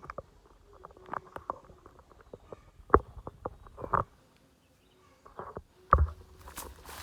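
Irregular clicks and knocks of firewood being handled and struck with a Cold Steel Rajah II folding knife, with sharp knocks about three, four and six seconds in.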